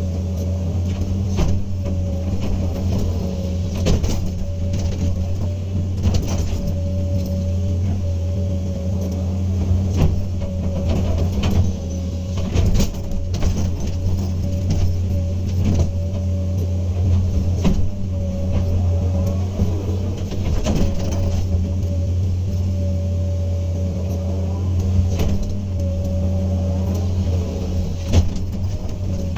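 Hydraulic excavator's diesel engine running steadily under work, with frequent short knocks and clatters scattered through it.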